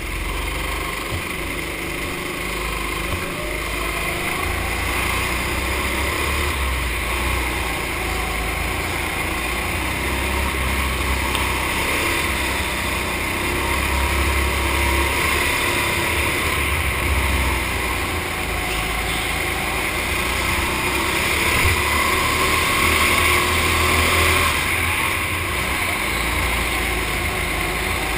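Racing go-kart engine running under throttle, a steady loud drone that comes in abruptly as the kart pulls away.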